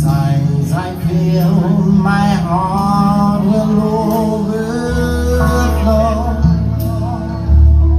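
A band playing a slow soul song with a singer, who holds long, wavering sung notes over a steady bass line.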